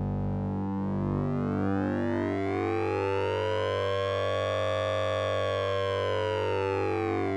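Synthesized electronic tone with a sync and ring-modulation effect: a steady low hum, and over it a bright sweep that rises to a peak about halfway through and falls again, siren-like.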